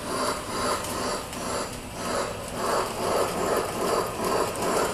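Model train running slowly on its track: a rolling mechanical clatter of wheels and gearing that swells about twice a second.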